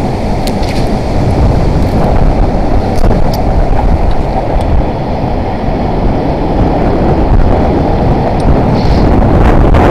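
Strong wind buffeting the microphone: a loud, steady rumble with a few faint ticks.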